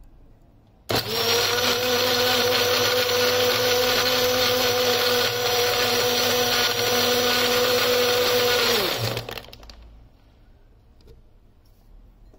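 Electric mixer-grinder blender switched on about a second in, its motor running at a steady whine as it blends banana, milk and ice. It is switched off about nine seconds in, the whine dropping in pitch as the motor winds down.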